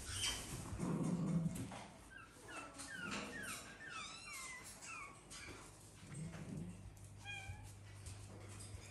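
Very young animals crying: many short, high-pitched mewing calls, each falling in pitch, thickest a few seconds in. About a second in there is a louder rustle.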